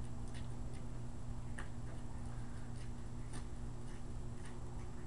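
Steady low hum with a few scattered faint clicks, about one a second.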